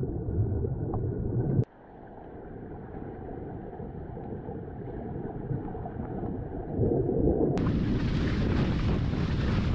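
Wind rumbling on the microphone and water rushing past while sailing an inflatable catamaran. About a second and a half in the sound cuts away sharply and slowly builds again; near the end it switches abruptly to a louder, hissier rush of wind and water.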